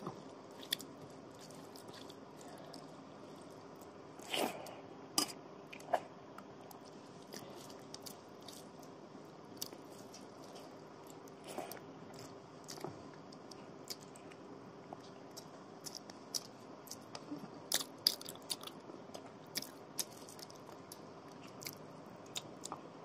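Eating by hand: rice and egg curry mixed with the fingers on a steel plate and chewed, heard as scattered sharp wet clicks and smacks that come thickest near the end, over a faint steady hum.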